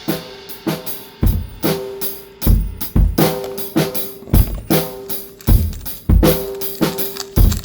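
Music: a steady drum-kit beat with kick drum, snare and cymbals in an even, repeating pattern.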